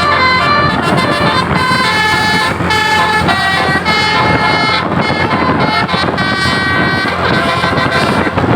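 Basuri telolet bus horn playing a quick tune of stepped notes, one after another, over steady vehicle and outdoor noise.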